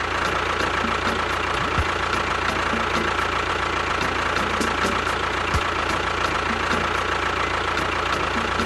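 An engine idling steadily, with a faint regular tick about three times a second.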